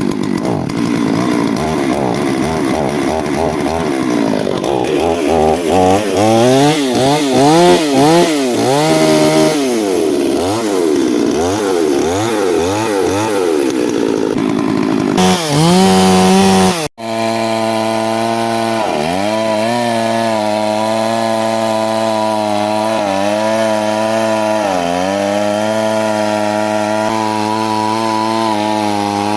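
Stihl MS 382 two-stroke chainsaw running. It is revved up and down several times and held briefly at high revs, then settles to a steady idle with a couple of brief dips in engine speed.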